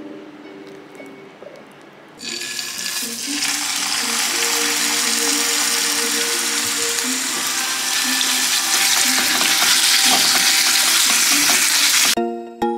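Raw seasoned ground chicken sizzling loudly in hot oil in a frying pan, starting suddenly about two seconds in and cutting off abruptly near the end. Quiet background music plays throughout.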